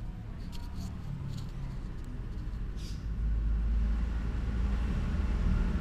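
A low, steady rumble that grows clearly louder about halfway through, with a few faint clicks near the start.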